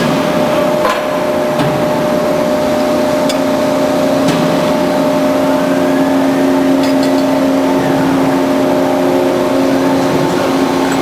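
Band saw running steadily, a constant motor hum with a few light clicks scattered through it.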